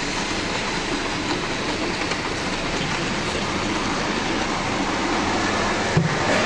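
OO gauge model trains running past on the layout's track: a steady mechanical rolling noise of the models' motors and wheels on the rails, from locomotives with no sound chip fitted. About six seconds in, a pair of model Class 20 diesel locomotives passes close by, with a brief knock.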